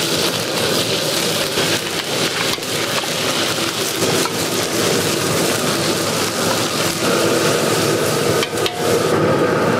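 Diced pork and onion sizzling in hot oil in a steel wok, stirred with a metal ladle that scrapes and knocks against the wok, with a few sharper clacks near the end.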